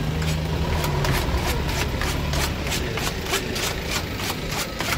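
Knife chopping fried vegetables for kafteji in a metal bowl, a quick steady tapping of about four to five strokes a second. Under it, a low engine hum that fades out about halfway through.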